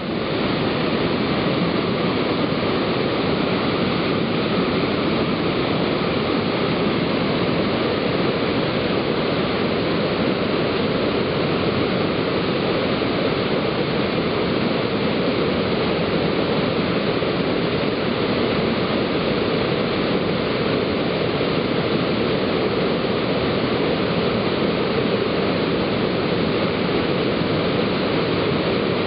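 Sol Duc Falls, a waterfall splitting into several channels that plunge over mossy rocks into a narrow gorge, giving a steady, unbroken rush of falling water.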